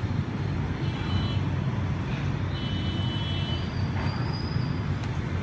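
Steady low rumble of road traffic, with a few faint high tones and a couple of light clicks near the end.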